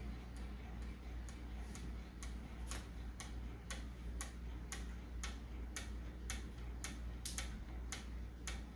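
Large propeller of a giant rubber-powered model airplane spinning under its unwinding rubber motor, with an even swish about twice a second. The builder suspects the prop is not quite balanced.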